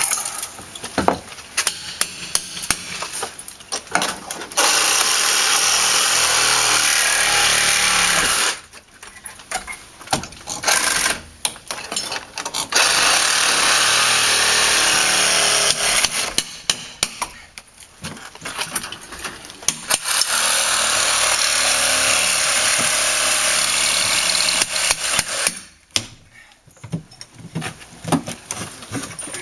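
A power tool running in three long runs of several seconds each, with rapid knocks and taps between them.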